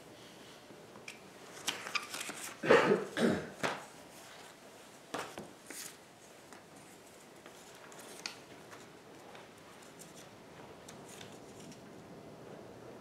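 Paper rustling as sheets and small slips are handled and leafed through, loudest for a couple of seconds near the start, with a few softer rustles later.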